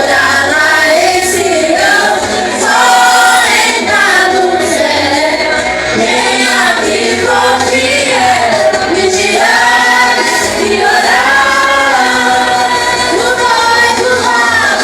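A group of voices singing a Pentecostal worship medley together, choir-style, over musical accompaniment, with steady loudness throughout.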